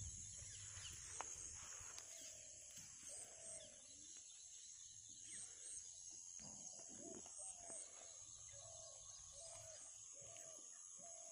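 Faint rural outdoor ambience with a bird calling over and over in short, low, curved notes, more often in the second half, over a steady high hiss.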